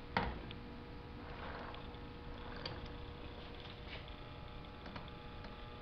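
Quiet workshop room tone with a faint steady hum, broken by a few light clicks, the loudest just after the start.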